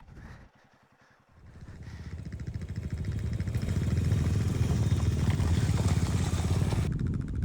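Motorcycle engine running, rising from near quiet about a second in and growing louder over the next two seconds, then holding steady.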